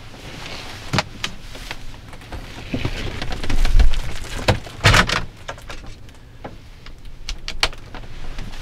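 Pop-top camper roof being raised by hand from inside: a scatter of clicks and knocks from the hinged front panel and its locking mechanism, with a louder thump about five seconds in and some rustling in between.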